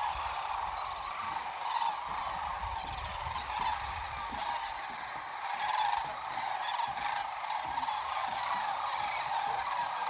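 A flock of sandhill cranes calling in flight, many birds overlapping in a continuous chorus.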